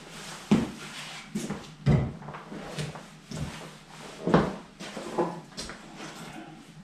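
Irregular knocks and thuds of a person in boots moving about on a stone floor, the loudest about two seconds in and again past four seconds.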